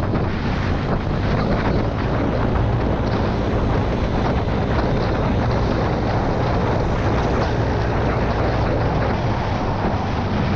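Steady wind rushing over the microphone of a motorcycle rider at speed, with the bike's engine running underneath as a steady low hum.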